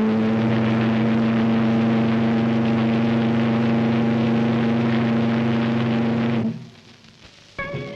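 Steam whistle of a Cunard ocean liner sounding one long, steady blast. It is a deep chord of several notes at once and cuts off about six and a half seconds in.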